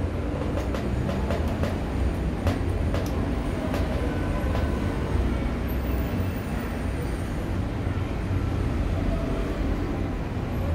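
Steady low rumble of background noise, with light scattered clicks and ticks as cable connectors and plastic parts are handled inside an opened all-in-one computer.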